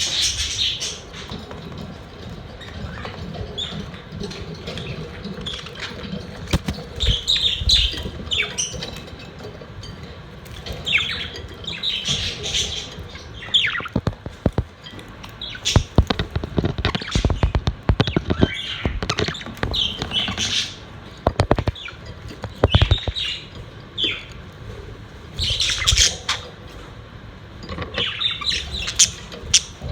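Pet budgerigars chirping and squawking in repeated bursts, with a cluster of sharp clicks and knocks through the middle.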